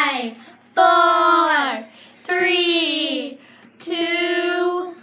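A child's voice singing long, drawn-out notes about every second and a half, each one sliding down in pitch at its end.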